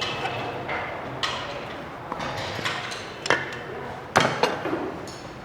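Small metal engine parts clinking and knocking as they are handled: a few separate sharp knocks, the loudest about four seconds in, over a low steady background hiss.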